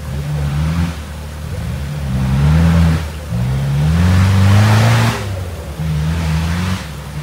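Off-road 4x4's engine revving in four separate bursts, the pitch climbing during each. The longest and loudest burst comes in the middle and ends in a loud hissing rush.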